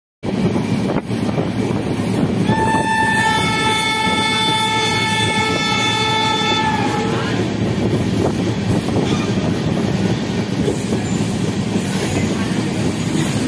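Freight train of loaded car-carrier flat wagons rolling past with a steady rumble of wheels on rail. About two and a half seconds in, a train horn sounds one held chord for about four seconds, then stops while the wagons keep rolling.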